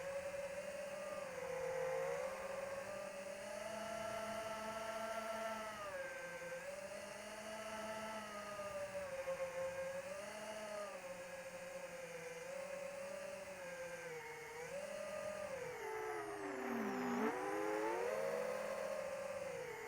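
Electric motor and propeller of an AtomRC Dolphin FPV plane whining, the pitch rising and falling as the throttle changes. A few seconds before the end it drops sharply, then climbs back up.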